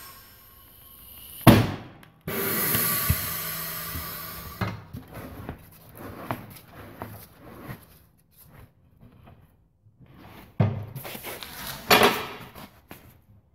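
Pedal-operated bead breaker of a tyre-changing machine pushing on the tyre of a rusty steel wheel to break the bead: a sharp knock, then a hiss of air that fades over about two seconds. Knocks and scrapes follow as the wheel is moved, then a second hiss with a loud knock near the end.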